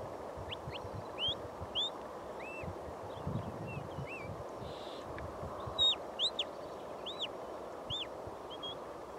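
A shepherd's whistle giving a string of short commands to a working sheepdog: sharp rising and arching notes about half a second apart, the loudest run coming a little before halfway through. Wind rumbles on the microphone underneath.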